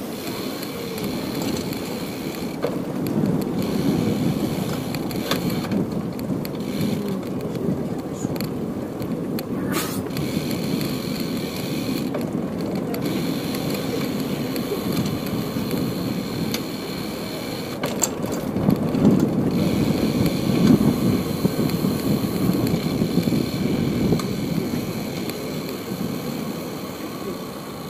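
A bicycle's tyres rolling over paving and the bridge deck, giving a steady rumble with light rattling and clicks. The rumble grows louder for a few seconds about two-thirds of the way in.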